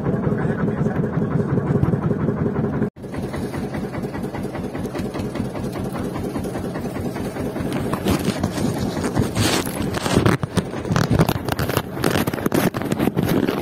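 A fishing boat's engine running steadily. In the second half, gusts and knocks from wind and handling hit the microphone.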